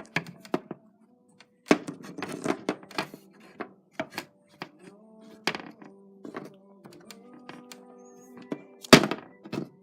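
Soft background music with held notes, over repeated sharp clicks and knocks of small plastic toy figures being handled and set down. The loudest knock comes near the end.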